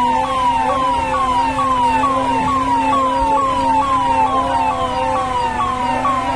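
Emergency vehicle's electronic siren sounding a fast repeating falling whoop, about two sweeps a second, over a steady low drone.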